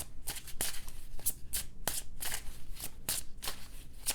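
Tarot cards being shuffled by hand: a quick run of short riffling snaps, a few each second.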